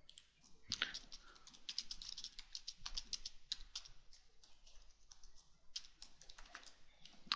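Typing on a computer keyboard, faint: quick runs of key clicks, a short pause, then a few more keystrokes.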